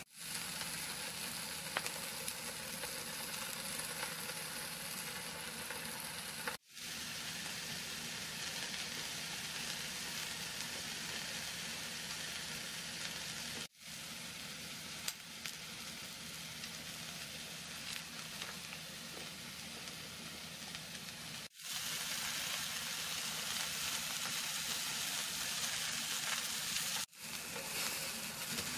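Grilling cheese, pineapple rings and vegetables sizzling in a frying pan, a steady hiss that drops out briefly four times at edits.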